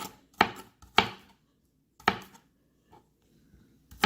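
A santoku kitchen knife chopping onion, the blade knocking on the cutting board in separate sharp chops at an uneven pace: four in the first half, then a faint one and a pause before the next.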